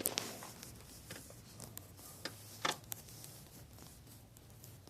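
Faint handling noise of small parts: a few light clicks and taps, the loudest about two and a half seconds in, over a low steady hum.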